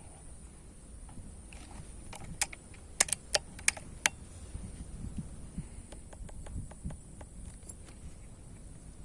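A run of sharp clicks and taps, about six loud ones between two and four seconds in, then fainter ticks later, over a steady high hiss.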